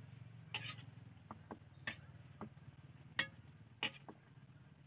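Metal spatula clinking and scraping against a cooking pan while stirring adobong kangkong, in about eight irregular sharp clinks over a low steady hum.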